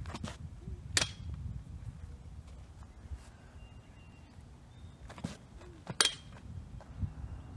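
Two pitched baseballs striking their target with a sharp smack, about five seconds apart, each after a fainter crack at the pitch. Low wind rumble runs underneath.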